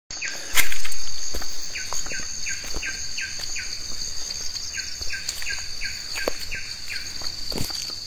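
Steady high-pitched insect drone of cicadas or crickets, with a bird repeatedly calling in short falling notes, several a second, over it. A few sharp clicks and a knock near the start.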